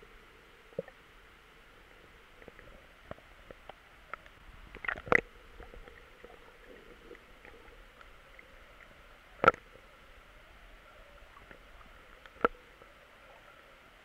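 Underwater ambience heard by a submerged camera: a steady faint hiss with scattered small clicks and three louder sharp knocks, about a third of the way in, about two-thirds in and near the end.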